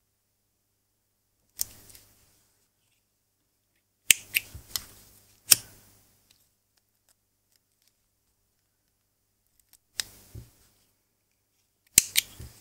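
Scissors snipping off leftover ends of polyester cord, in scattered sharp snips: one, then a quick run of four, then two pairs.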